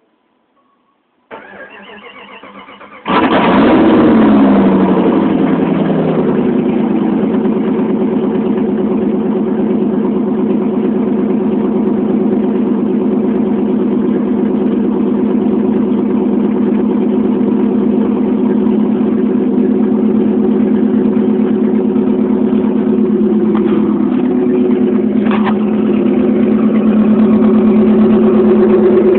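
1996 Jeep Grand Cherokee's 5.2-litre Magnum V8 with a straight-pipe exhaust, started cold: the starter cranks for about two seconds, then the engine catches and runs loud. The revs fall over the next few seconds and it settles into a steady cold idle.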